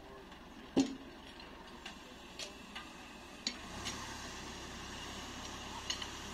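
Scattered sharp knocks and clicks of track-laying work with wooden ties, steel and hand tools, the loudest about a second in. A low engine hum comes in about four seconds in.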